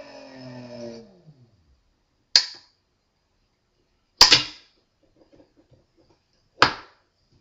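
Briggs & Stratton Etek brushless motor's electric whine falling in pitch and fading as it spins down to a stop over the first second and a half. Then three sharp, loud clicks, a couple of seconds apart, as toggle switches on the control box are flipped.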